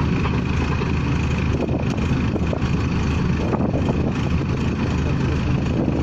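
The engine of a pneumatic drilling rig, or of the air compressor that powers it, running steadily with a faint high whine.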